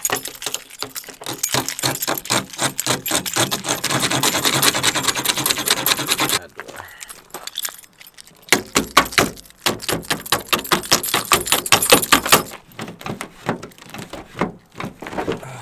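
A key scraping and rattling at a van's snow-crusted door handle and lock, with the bunch of keys on its lanyard jangling: rapid scratching for about six seconds, a short pause, then more quick scraping that thins out near the end.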